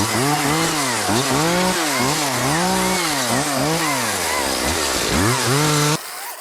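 Top-handle chainsaw revving up and down in quick repeated blips, its pitch rising and falling about every half second, then cutting off abruptly near the end.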